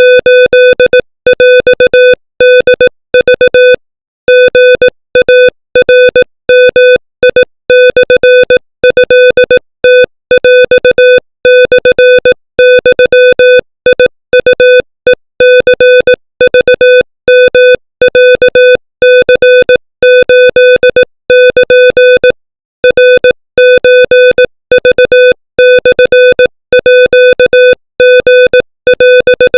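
Morse code at 25 words per minute: one steady-pitched buzzy beep keyed rapidly on and off in short dots and longer dashes, with brief gaps between letters and a few longer pauses between words.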